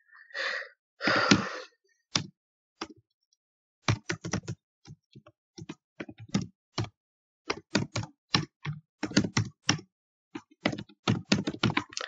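Typing on a computer keyboard: quick irregular runs of keystroke clicks with short pauses between them. A brief louder noise about a second in.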